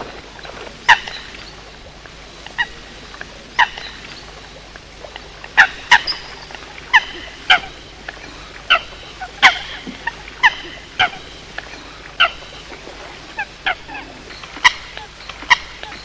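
Common coots calling: short, sharp honking calls, about one a second at uneven spacing, sometimes two in quick succession.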